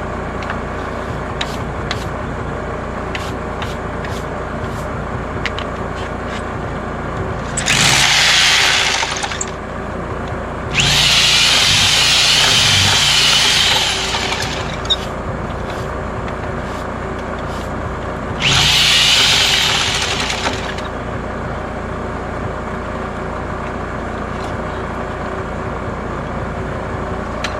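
DeWalt D25263K SDS hammer drill boring into a concrete slab for anchor bolts, in three bursts of about two, three and two seconds, the middle one the longest.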